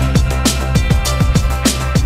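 Background music with a driving drum beat: punchy kick drum hits over a steady bass line, with crisp cymbal-like strokes on top.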